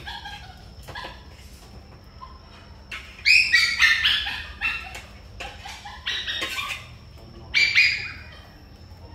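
Animal calls in a few separate loud bursts, a second or so each, over a faint steady high tone.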